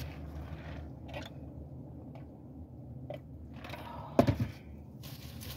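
A low steady hum in a parked car's cabin, with a few faint clicks and a brief vocal sound from the woman about four seconds in.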